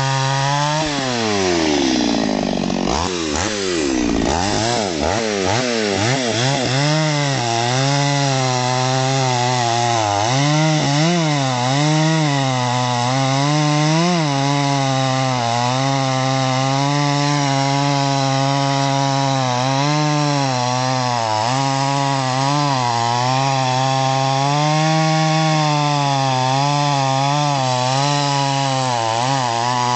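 Solo by AL-KO 652 two-stroke petrol chainsaw running at full throttle while cutting through a thick log. About a second in, the engine speed drops steeply and then climbs back over the next few seconds. After that it holds high and steady, wavering a little as the chain takes the load.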